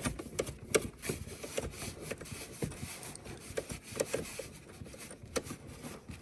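Irregular scraping, rubbing and small clicks as the dishwasher's leveling feet are adjusted.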